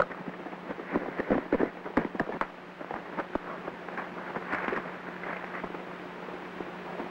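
Horses' hooves galloping on a dirt trail: irregular clopping knocks, thickest in the first few seconds, over the crackle, hiss and steady low hum of an old 1930s film soundtrack.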